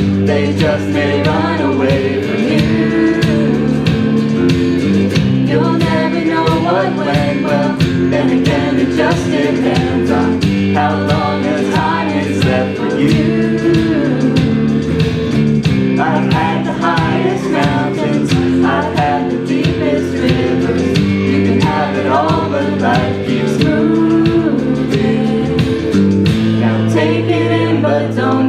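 A small live band with strummed electric guitar keeping a steady beat, accompanying several voices singing a pop song together, with the congregation joining in.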